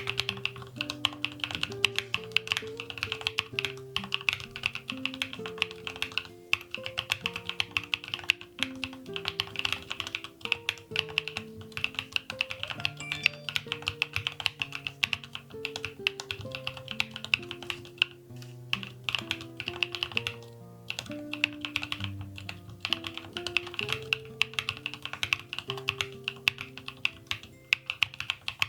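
Chosfox CF81 mechanical keyboard with Voyager tactile switches being typed on steadily, a rapid stream of key clacks, over background music with sustained notes.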